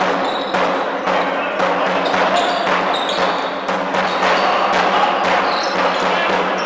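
A basketball being dribbled on a sports-hall floor, with repeated sharp bounces ringing in the reverberant hall. Sneakers squeak briefly on the floor, over a steady low hum.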